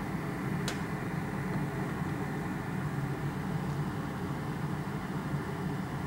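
Steady mechanical hum under the hood of a 2007 Honda Element with the ignition on, its radiator fan cut off by the pulled relay. One sharp click about a second in.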